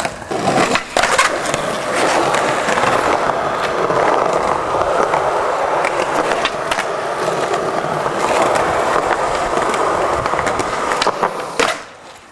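Skateboard wheels rolling over concrete, with sharp clacks of the board popping and landing, most of them in the first couple of seconds and again near the end.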